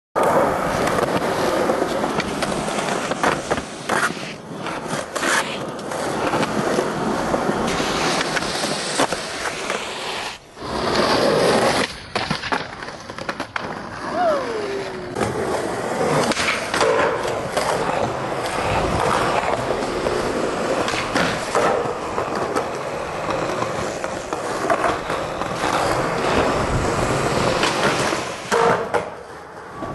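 Skateboard wheels rolling on concrete, with the sharp clacks of tail pops and landings and a grind along a ledge, broken by abrupt cuts between clips.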